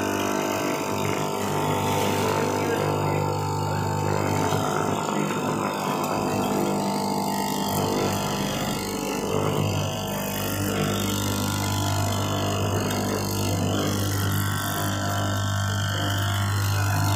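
Electric straight-knife cloth cutting machine running with a steady low hum as its vertical reciprocating blade cuts through layered lycra fabric.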